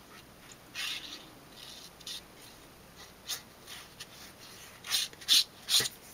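A fine-tip bottle of Art Glitter Glue being squeezed out onto a cardstock panel, its tip scratching and hissing in a string of short bursts, the loudest near the end.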